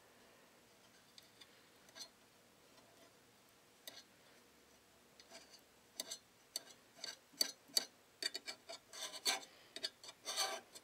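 Light clicks and scrapes of metal tweezers working a fabric strip through the metal guides of a serger's bias binder attachment, with the fabric rubbing against the metal. Only a few scattered clicks at first, then busy clicking and scratching in the second half.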